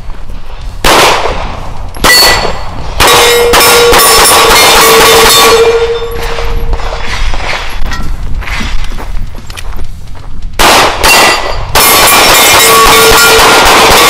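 Pistol shots at steel targets, each hit answered by the clang of the steel plate. There are shots about a second apart in the first few seconds, then more about ten seconds in. After each string a struck plate keeps ringing with a steady tone for a few seconds.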